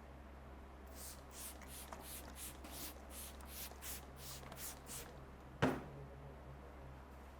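Hands rubbing briskly over hair and scalp in a head massage: about a dozen quick swishing strokes, roughly three a second. A single sharp click follows and is the loudest sound, over a steady low hum.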